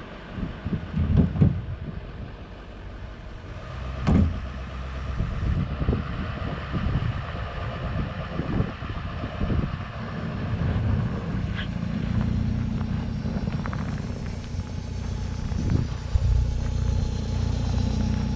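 A vehicle engine running low and steady while towing a stuck vehicle out of a snowdrift, with a few loud knocks and bumps in the first seconds and a heavier, steadier drone in the last third.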